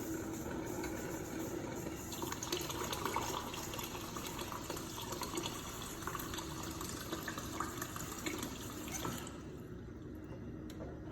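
Water running from a refrigerator door dispenser into a cup to bleed air out of the line after a new water filter has been fitted. The flow stops about nine seconds in.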